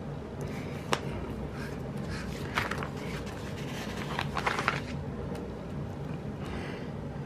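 Sticker sheets and planner pages being handled: a single click about a second in, then a run of crinkly, scraping rustles, over a steady low hum.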